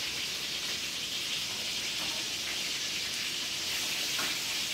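Hot oil sizzling steadily in a skillet on the stove as breaded food fries.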